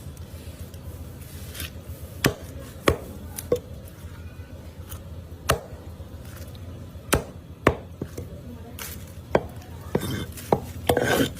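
A knife chopping through raw broiler chicken on a cutting board: about ten sharp, irregularly spaced blows, with a busier run of handling and scraping near the end.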